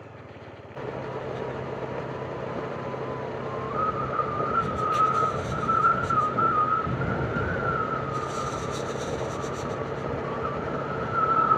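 Motorcycle running steadily along a rough road, its engine hum under a rush of wind noise, with a wavering whistling tone that comes in a few seconds in and brief rattles.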